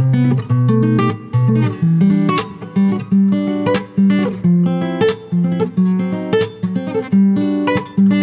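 Background music: acoustic guitar strummed in a steady rhythm, with a new chord or note about every half second.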